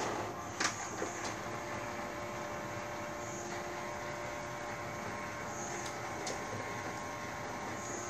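A steady mechanical hum from a household machine, with a couple of light clicks about half a second and a second in.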